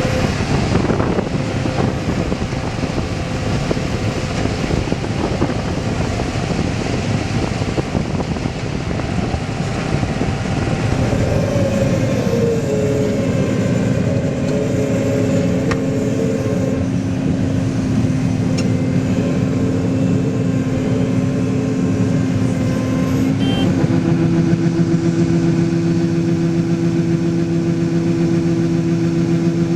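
Farm machinery engine running steadily, with whining tones that waver in pitch midway and give way to a steadier, slightly louder hum for the last several seconds.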